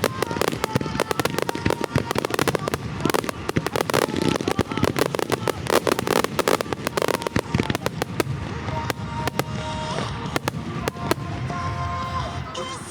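Rapid barrage of aerial firework bursts and crackles over a rock song from the show's loudspeakers. The bursts thin out about two-thirds of the way through while the music carries on.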